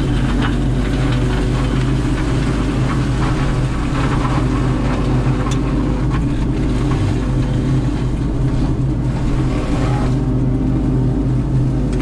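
Heavy diesel forestry machinery running steadily under load: a grapple loader and a Prime Tech PT175 tracked mulcher working brush, with an even engine drone.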